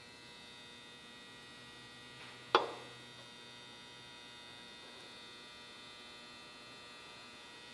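Steady electrical hum made of many fixed tones, with one sharp metallic clink about two and a half seconds in that rings briefly, as a tool or part knocks against the engine block being assembled.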